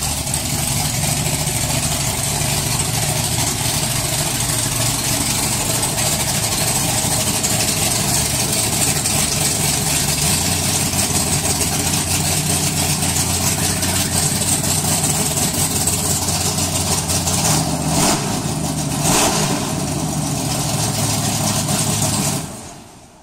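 1979 Chevrolet El Camino's 402 big-block V8 idling steadily. It cuts off near the end.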